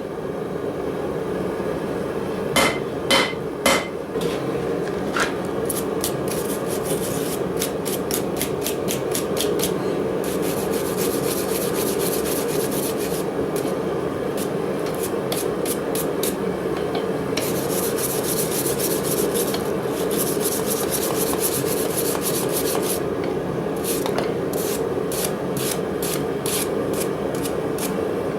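Three hammer blows on the iron about three seconds in, then long runs of quick, evenly spaced scraping strokes on the metal, as in filing or rasping, over a steady hum.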